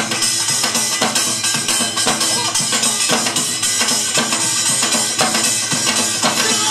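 Korean barrel drum (buk) beaten with a stick in a steady rhythm, with music playing along.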